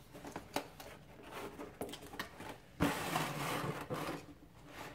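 Cardboard toy-blaster box being opened and handled: scattered light clicks and taps, then about three seconds in a sudden stretch of rustling and scraping of the cardboard and packaging lasting a second or so.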